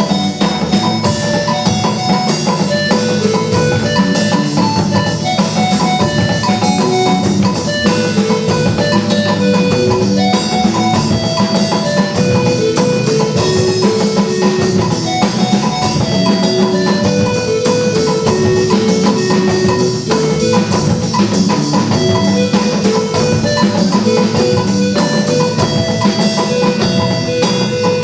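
Instrumental music with a steady drum-kit beat and a repeating melody of short plucked or mallet-struck notes.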